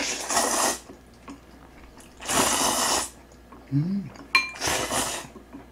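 Jjajang instant noodles being slurped from chopsticks in three long draws. Between the second and third draw there is a short hum and a single ringing clink.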